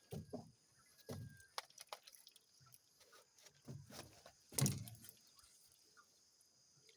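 Scattered dull thumps and rustles, the loudest about four and a half seconds in, over a faint steady high-pitched insect drone.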